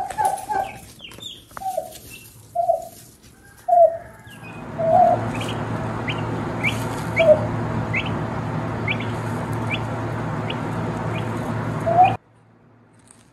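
A turkey hen's short, repeated low clucking calls, with chicks' high peeps about one a second in the middle. A steady low hum comes in about four seconds in and cuts off abruptly near the end.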